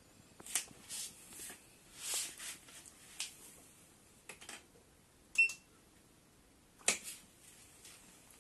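Scattered light clicks and taps, with one short high electronic beep about halfway through and a sharper click a second and a half later.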